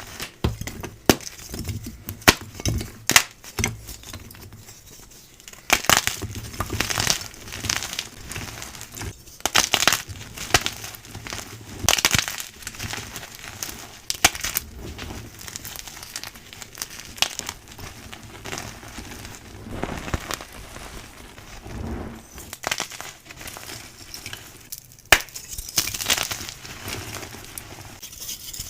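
Soft gym chalk blocks being crushed: a run of crisp crunches and crumbles at uneven intervals, with brief lulls between clusters.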